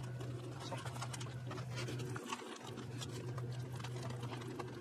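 Metal spoons stirring in plastic instant-pasta cups, making faint scraping and light clicking against the cup walls, over a steady low hum.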